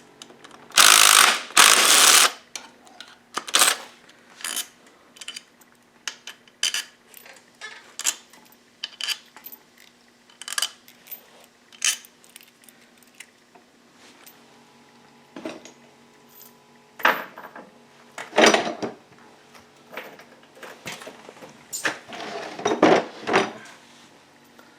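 Hand tools and loose steel bolts clinking and tapping as the bolts around a Yamaha WR426F engine's side case are taken out. Two longer, louder noisy bursts come about a second in, followed by scattered short clicks and taps, a few of them louder.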